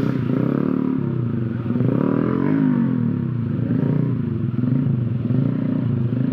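Honda Supra motorbike's small four-stroke engine running under light throttle as it crawls over a bamboo plank bridge. The revs rise and fall once about two seconds in, then hold steady.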